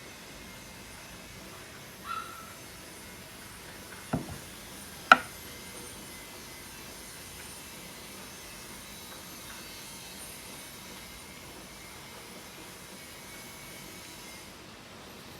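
Three short knocks of a hard object being set down or tapped, the third the loudest, the first and third each leaving a brief ring, over a steady background hiss.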